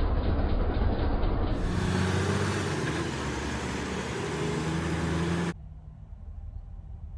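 MAN refuse truck's diesel engine running close by with a steady clatter, then rising and falling in pitch as the truck drives off. About five and a half seconds in, it cuts abruptly to a much quieter low rumble.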